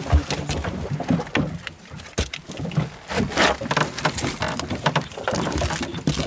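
Irregular knocks and rustles of handling on a small boat's deck, over a low steady background noise.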